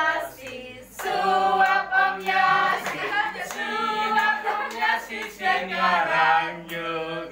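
A group of people singing a song together in unison, with mixed voices holding notes.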